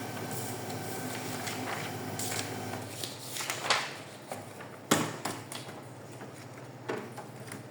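A steady hum, then several sharp plastic clicks and knocks, the loudest about five seconds in, as the casing of a reassembled HP LaserJet M1132 laser printer is handled.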